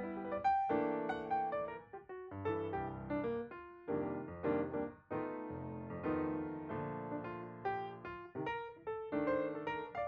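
Background piano music: a flowing run of notes, several a second, each struck and fading.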